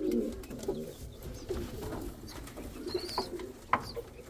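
Domestic pigeons cooing continuously in a loft, a low warbling murmur, with a few sharp clicks and brief high chirps about three seconds in.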